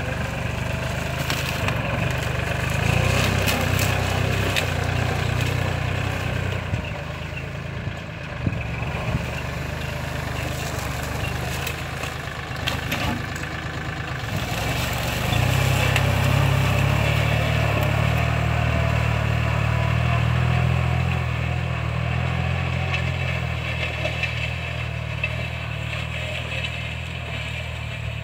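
Kubota L4018 tractor's four-cylinder diesel engine running under load while pulling a disc plough through grass and soil, with occasional short knocks and clanks. The engine gets louder about three seconds in and again for several seconds from about fifteen seconds in, then fades a little near the end.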